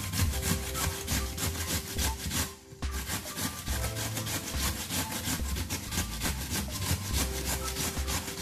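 Peeled raw potato being grated on a stainless steel box grater: quick, repeated rasping strokes, with a short pause about two and a half seconds in.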